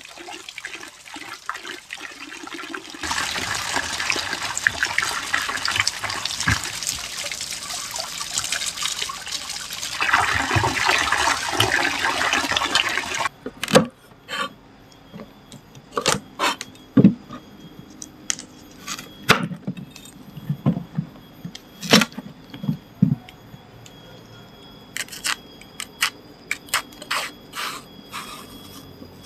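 A stream of running water splashes into a basin while cassava roots are scrubbed in it. After about thirteen seconds it cuts off abruptly, and a kitchen knife is heard scraping and clicking at intervals as it peels the cassava.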